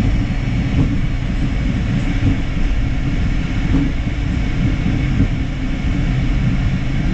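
Cockpit noise of an Embraer Phenom 300E taxiing: a steady low rumble from its twin Pratt & Whitney PW535 turbofans and the wheels rolling on the taxiway.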